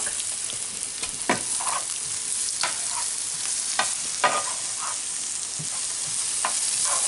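Sliced onions sizzling steadily as they sauté in butter in a frying pan, with about five sharp clicks and a few scrapes as tongs stir them against the pan.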